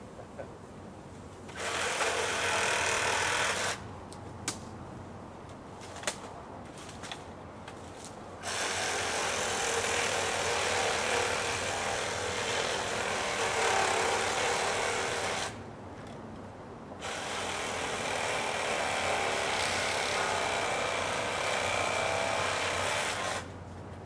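A power saw cutting wood in three steady bursts: a short one of about two seconds, then two long ones of about seven and six seconds. A few sharp knocks fall between the first two cuts.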